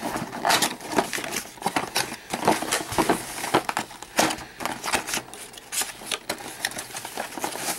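Cardboard and plastic-blister packaging rustling, scraping and crinkling as carded die-cast cars are pushed out of a long cardboard box by hand, with many irregular small clicks.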